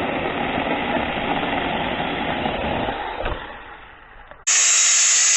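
TOMYVIC battery-powered mini chainsaw cutting through wood, a steady noisy cutting sound that dies away after about three seconds. About four and a half seconds in, a loud, steady, high-pitched whine of the small saw's motor starts suddenly.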